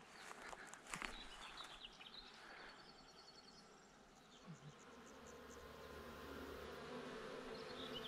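Faint buzzing of a small swarm of Carniolan honeybees at a small wooden nucleus hive, growing louder toward the end, with a few light knocks about a second in.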